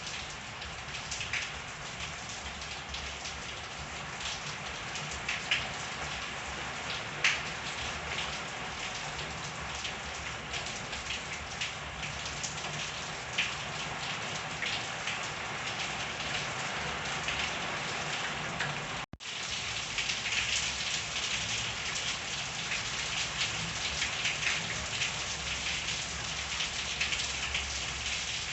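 Steady rain falling and pattering on surfaces, with occasional sharper individual drop ticks. The sound cuts out for a split second about two-thirds of the way through, then resumes slightly heavier.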